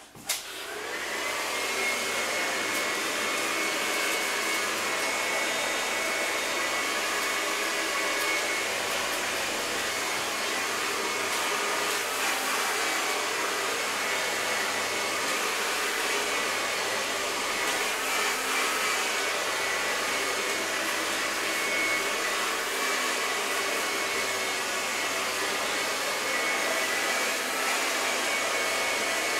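Handheld hair dryer switched on and spinning up over the first second or so, then running steadily: a rush of air with a faint high motor whine. It is blow-drying short hair over a brush.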